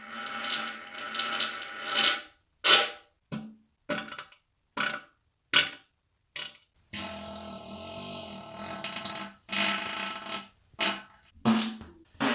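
A series of human farts, some tonal and buzzy, broken by silent gaps. A sustained one at the start is followed by about six short ones, then a long one of about two seconds, then several more short ones in quick succession near the end.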